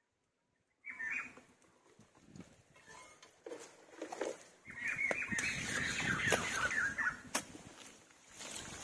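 An animal calling: a short wavering cry about a second in, then a longer chattering call of about two seconds past the middle, with several sharp clicks or knocks among them.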